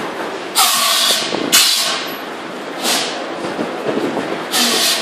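Water from a hose nozzle sprayed in bursts onto the burning engine of a Toyota forklift, hissing as it flashes to steam on the hot parts. There are four bursts of hissing: two close together about a second in, a short one midway, and a longer one near the end.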